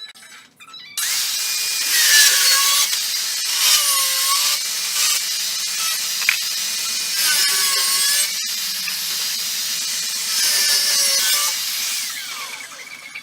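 Handheld electric power tool running under load, its motor pitch dipping and recovering several times. It starts abruptly about a second in and tails off near the end.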